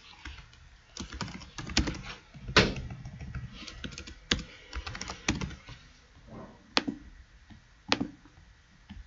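Typing on a computer keyboard: irregular keystrokes, thickest in the first half, then a few single keystrokes near the end.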